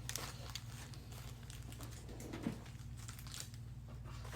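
Trading card packs being handled and shifted about on a table: scattered crinkles and light rustles over a steady low hum.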